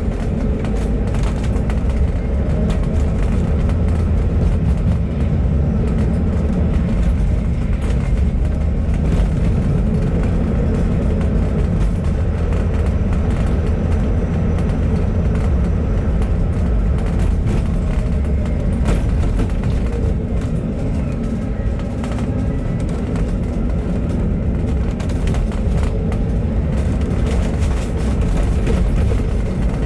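Replacement bus driving along, heard from on board: a steady low rumble of engine and road noise.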